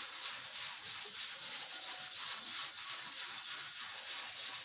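Steady high-pitched hiss with no distinct knocks or clicks.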